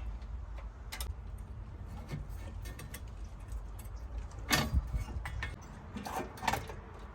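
Scattered metallic clicks and clinks of hand work on a carburetor's throttle cable linkage, with a sharper knock about four and a half seconds in and two more near the end.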